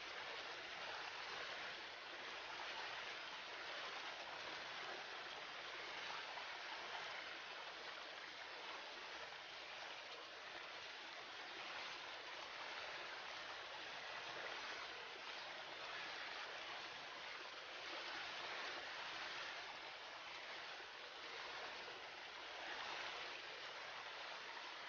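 River water flowing steadily, a continuous even rush without pauses.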